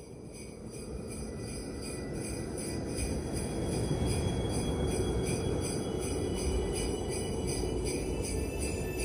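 Sleigh bells jingling in a steady rhythm, about two to three shakes a second, over a steady low rumble, swelling in over the first few seconds.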